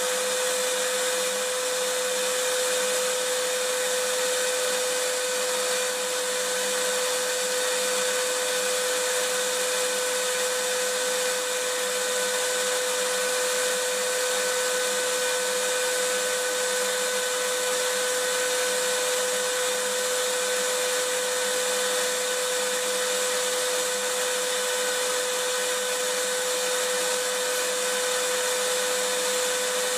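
Vacuum cleaner running steadily: a constant rushing hiss with a steady whine through it.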